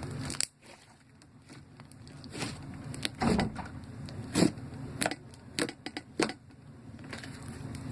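Slime being squeezed and worked by hand, giving irregular wet pops and clicks, about half a dozen over several seconds. A low hum stops about half a second in.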